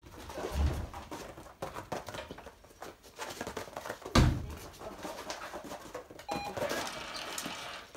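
A dog's paws and a person's footsteps scuffing and knocking on foam floor mats, with a heavy thud under a second in and a louder one just after four seconds.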